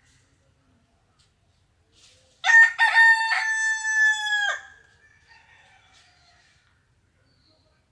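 A rooster crowing once, a single cock-a-doodle-doo starting about two seconds in and lasting about two seconds, its last note sliding down in pitch.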